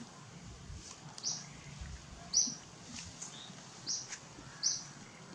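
A bird chirping: short, high chirps repeating about once a second.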